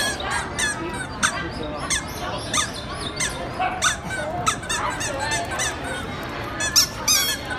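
Crowd chatter with many short, high-pitched squeaks and chirps scattered throughout, thickest near the end.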